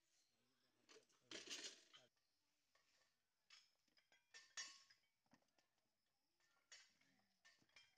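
Faint metallic clinks and knocks of a loaded barbell and its plates during snatch lifts, the loudest clatter about a second and a half in, with faint voices.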